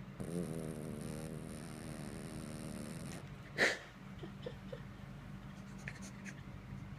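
Dog snoring: one long, pitched, wavering snore of about three seconds, then a short, sharp snort about half a second after it ends. A few faint clicks follow.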